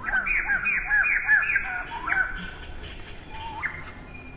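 A run of short, arching squeaky animal calls, about three a second for two seconds, then one more near the end.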